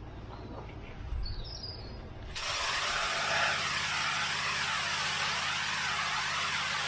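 A pressure washer's motor running steadily, then about two and a half seconds in the jet from the lance switches on and blasts the tarmac with a loud hiss. The hiss rises and falls in a regular rhythm as the edges of the drive are cut in.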